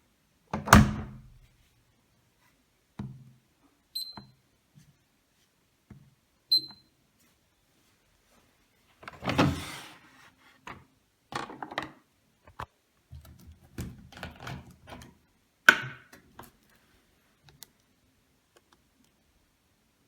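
Handling noise at a Miele W1 front-loading washing machine: scattered thuds, knocks and rustles, the loudest a thud near the start and another about three-quarters of the way through. Two short high beeps about four and six and a half seconds in, from the machine's control panel.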